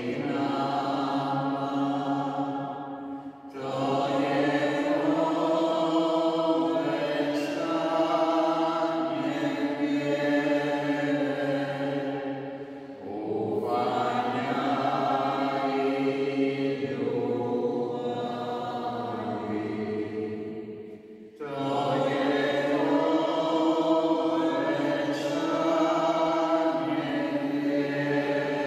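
A choir singing a slow chant in long held phrases, breaking briefly for breath three times, about every nine seconds.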